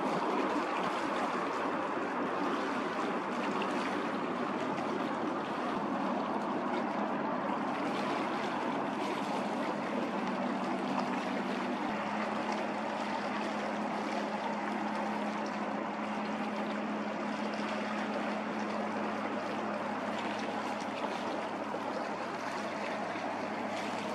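Steady low hum of the Akizuki-class destroyer Fuyuzuki's machinery as it steams past, over a constant rushing of water from its bow wave. The hum shifts slightly in pitch about halfway through.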